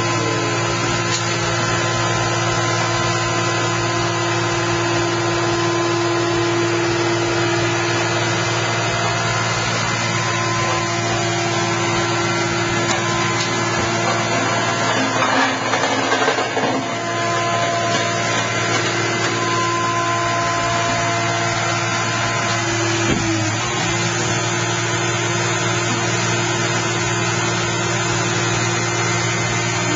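Orca car baler's power unit running steadily with a constant deep hum and drone. About halfway through there is a brief louder, rougher noise.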